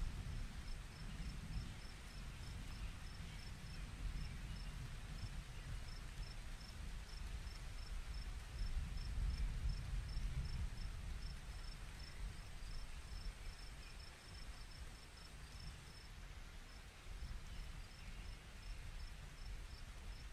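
Crickets chirping, a steady train of short high chirps at about three a second, over a low rumble, with a brief pause in the chirping about three quarters through.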